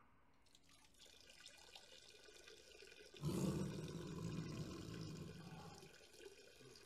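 A person urinating, the stream splashing into a toilet bowl: faint at first, then much louder from about three seconds in, with a low rumble under the splashing that fades toward the end.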